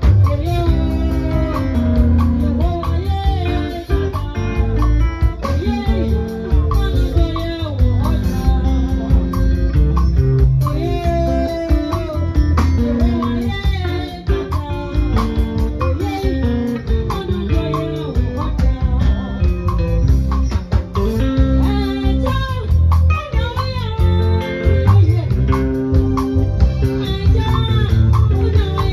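Live gospel band playing: electric lead guitar and bass guitar over a drum kit, with a woman singing.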